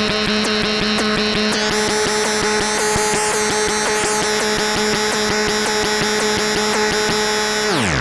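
Mannequins Just Friends eurorack oscillator module sounding a sustained, buzzy synth chord of steady tones over a fast ticking texture. A high shimmering layer sweeps up and down in the middle, and near the end every pitch glides sharply downward together.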